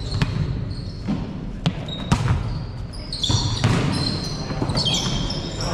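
A basketball bouncing on a gym floor at irregular intervals, with sneakers squeaking in short high bursts about three seconds in and again near the end.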